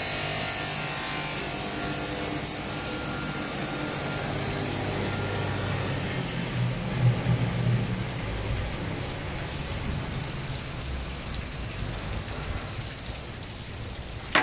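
Two-spindle automatic wet tile cutter running: electric spindle motors humming while the multi-blade saws cut ceramic tiles into strips under a steady hiss of spraying water. It gets briefly louder about halfway through.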